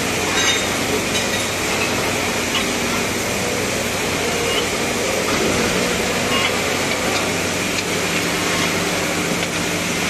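Steady workshop machinery noise: a continuous hiss over a low hum, with a few faint metallic clinks.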